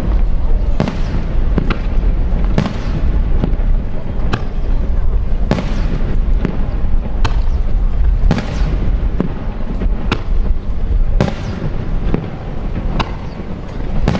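Aerial firework shells bursting, sharp bangs about once a second over a continuous low rumble.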